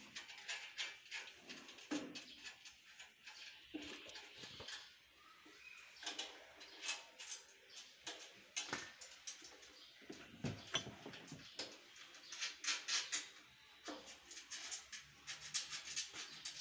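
Irregular metallic clicks, ticks and taps of a spanner and bolts being worked on the steel frame of a shredder/forage chopper during assembly, coming in quick clusters.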